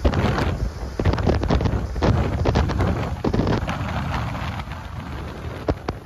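Strong wind buffeting the microphone, with gusty bursts throughout, mixed with rain and the road noise of a moving vehicle.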